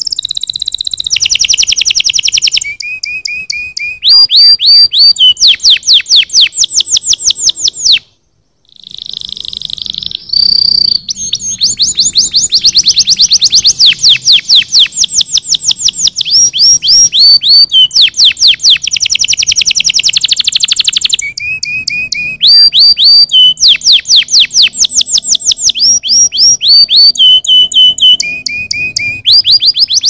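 Domestic canary singing loudly in long rapid trills: each is a fast run of repeated notes that changes to a new pattern every second or two, with a brief break about eight seconds in.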